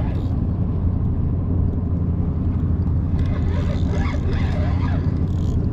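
Mercury four-stroke outboard motor running steadily close by, an even low hum.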